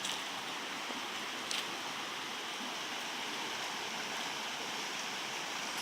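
Steady rush of flowing water, as of a forest stream or cascade.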